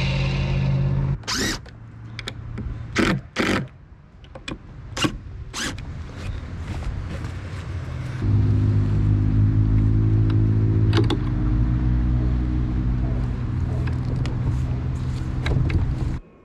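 A sliding miter saw runs steadily and cuts off about a second in. Then come a series of sharp knocks and clacks of lumber and tools being handled. From about eight seconds in, a cordless drill runs steadily for several seconds driving screws into the boards, with a sharp click and a change in pitch around eleven seconds in.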